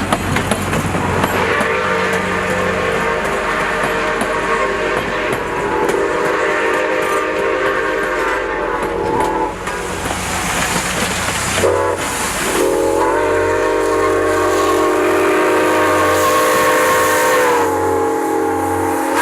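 Milwaukee Road 261 steam locomotive's chime whistle blowing two long blasts, each sagging slightly in pitch as it cuts off, over the rumble of the train rolling on the rails.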